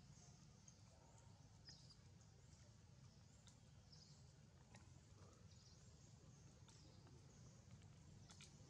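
Near silence: faint outdoor ambience with soft, scattered high chirps and a few light clicks near the end.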